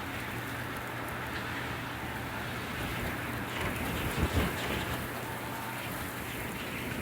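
Winter wind blowing steadily, with a stronger, lower gust about four seconds in.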